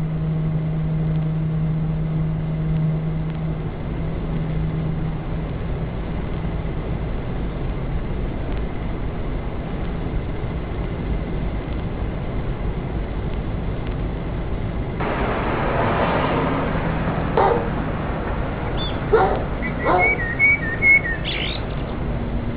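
Steady background hiss with a low hum that fades out in the first few seconds. About fifteen seconds in the noise grows fuller, and near the end come a handful of short calls and high, gliding chirps.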